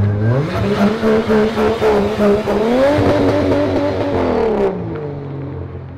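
Turbocharged Ford AU Falcon ute drifting. The engine revs rise about half a second in, hold, climb again around the middle, then drop back near the end, over the noise of the sliding rear tyres, which stops shortly before the revs settle.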